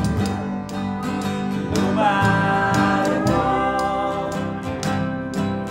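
Acoustic country band playing live: upright bass notes under acoustic guitar and sliding lap steel, with a steady clicking beat.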